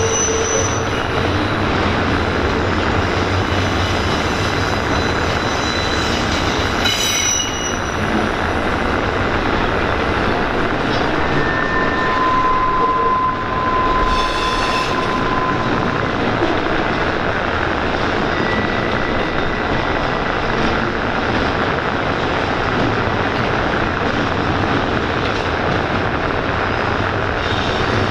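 Norfolk Southern intermodal freight train rolling past, a steady loud rumble of wheels and cars with a few short, high wheel squeals partway through.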